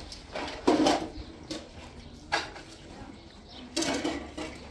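A plastic basin loaded with plates is set down on a concrete ledge with a clatter, the dishes rattling. Two more short knocks and clatters follow.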